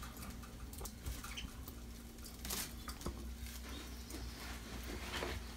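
Small cage birds moving about, with faint scratching and clicking and a few short, quiet chirps over a faint steady hum.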